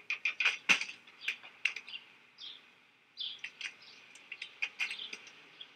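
Small birds chirping in short, scattered calls, busiest in the first two seconds and sparser after, with a few sharp clicks among them.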